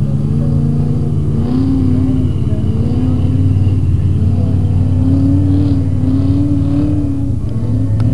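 Chevy truck's engine revving up and down, its pitch rising and falling repeatedly, as the truck drives through deep mud in two-wheel drive.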